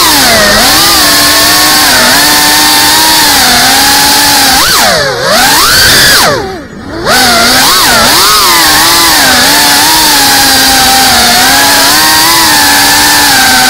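FPV drone's brushless motors and propellers whining loudly, heard close up from the camera mounted on the drone, the pitch wavering with the throttle. About five seconds in, and again more deeply around six and a half seconds, the motors slow and the whine dips in pitch and level, then quickly climbs back.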